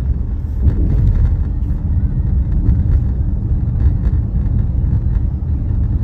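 Car road noise heard from inside the cabin while driving: a steady low rumble of tyres and engine, with a few light bumps near the start as the car rolls over railroad tracks.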